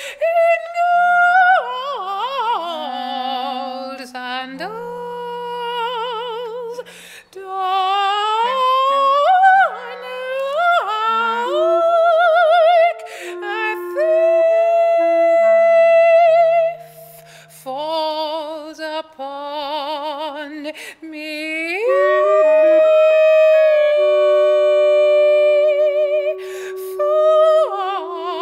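A woman's voice singing long notes with a wide vibrato, gliding between pitches, over a clarinet holding steady lower notes.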